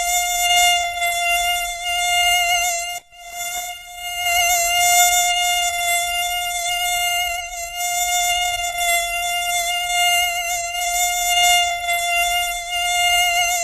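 Mosquito wings whining in flight: a steady high buzz held at one pitch with many overtones, breaking off for a moment about three seconds in.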